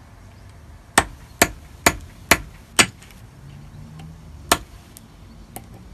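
A run of five sharp knocks about two a second, then a single knock a couple of seconds later and a few faint clicks near the end, over a low hum.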